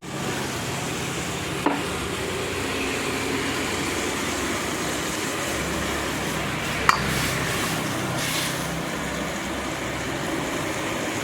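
Chilli chicken gravy frying and sizzling in a pan while it is stirred, over a steady low hum, with a faint knock near the start and a sharp clink about seven seconds in.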